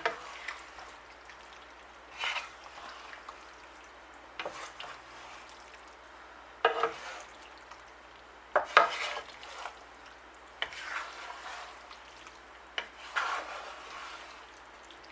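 Cutlery scraping and clinking against a dish of pasta in short, separate strokes every couple of seconds.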